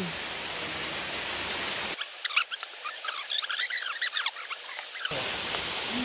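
Steady rush of a nearby jungle waterfall. About two seconds in the low rumble cuts out abruptly for three seconds, and a run of high, squeaky chirps takes its place, then the rush resumes.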